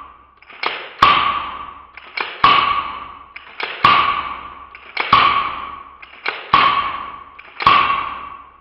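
Umarex Single Action Army CO2 airsoft revolver fanned through its six-shot cylinder: six shots a little over a second apart, each with a quick click of the hammer just before it and a ringing that fades over about a second after it.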